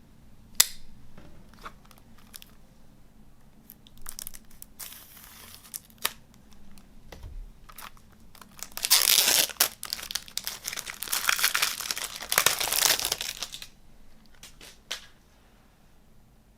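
Plastic shrink-wrap being torn and crinkled off a CD case, loudest for about five seconds in the middle, with scattered clicks and taps of the case before and after.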